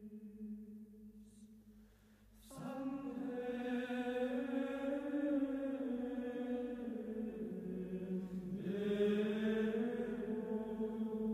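Vocal chant sung in long held notes, each slowly sliding in pitch. One note fades out about two seconds in, and a new, louder phrase begins half a second later.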